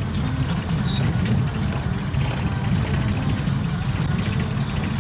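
Mahindra Bolero Pickup's diesel engine running and tyre noise heard from inside the cab while driving at a steady speed: a steady low rumble.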